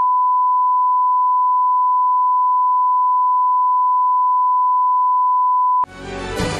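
Steady 1 kHz line-up test tone of the kind played over colour bars, a single unbroken pitch that cuts off abruptly near the end. Music starts at once in its place.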